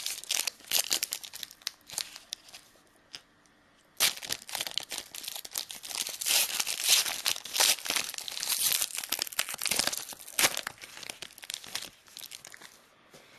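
A trading card pack wrapper being torn open and crinkled by hand, in bursts at first, then a short pause, then several seconds of continuous crinkling as the pack is opened.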